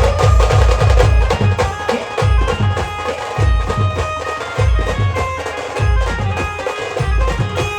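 Instrumental passage by a Maharashtrian village band playing a Kanbai song: heavy drum beats in a fast, steady rhythm under a loud, reedy melody line.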